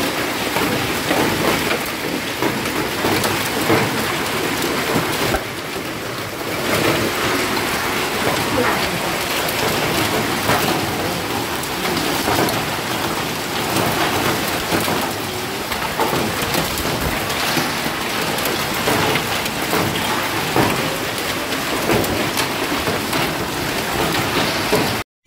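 Hailstorm: hailstones and rain falling on a tiled patio and rooftops, a dense, steady patter of countless small hits.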